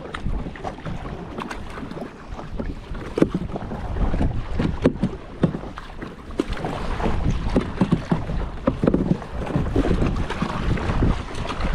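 Kayak paddle strokes splashing and dripping in lagoon water, with wind rumbling on the microphone.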